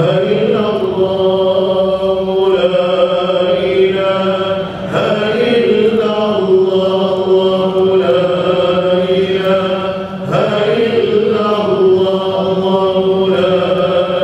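Voices chanting Islamic dhikr in long held notes, a repeated phrase that starts again about every five seconds.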